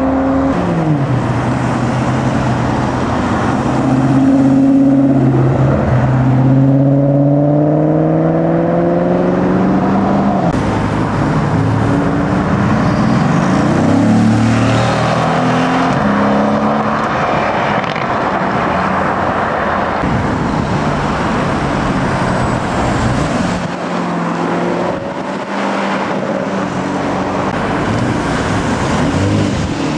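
Performance car engines accelerating hard, the engine note climbing and dropping back at each gear change as cars drive past.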